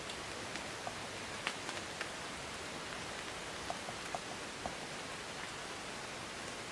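Steady hiss of light rain, with a few faint scattered taps, a cluster of them around the middle.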